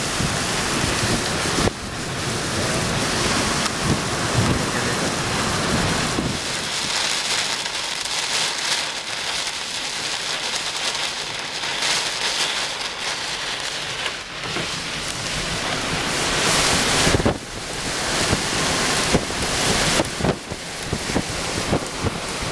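Heavy rain and strong gusting downburst wind in a desert storm, making a dense rushing noise that swells and eases with the gusts, with sharper gusts near the end.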